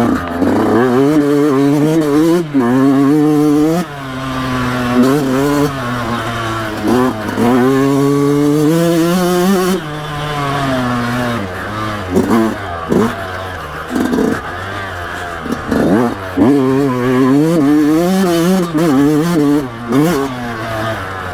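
Yamaha YZ125X's single-cylinder two-stroke engine revving up and down over and over as the rider opens and shuts the throttle through rutted turns. The pitch climbs on each run and falls away quickly when the throttle closes.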